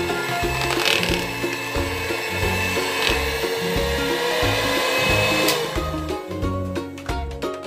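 Electric mixer motor running in thick brownie batter, stopping about five and a half seconds in, over background music with a steady beat.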